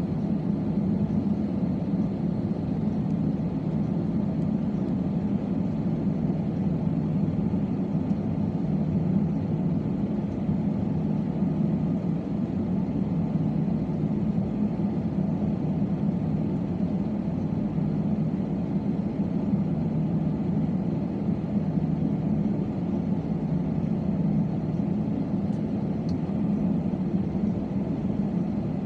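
Steady cabin drone of an Airbus A320-216: its CFM56-5B engines and the rushing air making an even low hum with hiss above it.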